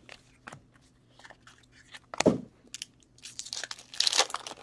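Trading card pack wrapper being torn open and crinkled by hand, with sharp crackles and a dense stretch of crinkling near the end. There is a single thump about two seconds in.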